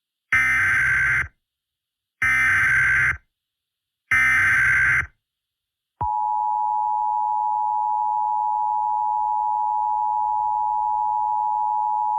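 Emergency Alert System signal: three bursts of SAME header data tones, each about a second long with about a second of silence between them, then the EAS two-tone attention signal starts about six seconds in as a steady tone. It marks the start of an emergency alert broadcast.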